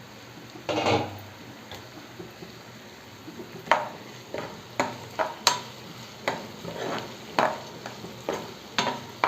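Spatula stirring and scraping onions frying in oil in a pan, over a light sizzle; one scrape about a second in, then repeated strokes about every half second from the middle on.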